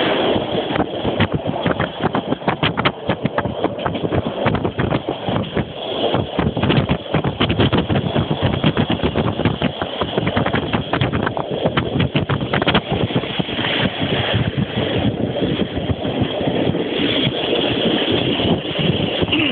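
Train running at speed, heard from aboard: a steady rumble under a dense, irregular clatter of wheels over the track.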